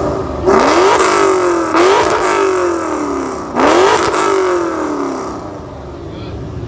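A car engine being revved in three sharp blips, each one climbing quickly and then dropping away slowly as the revs fall back, dying down near the end.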